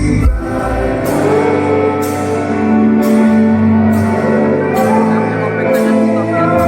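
Band playing a slow song live: sustained chords with a drum stroke about once a second.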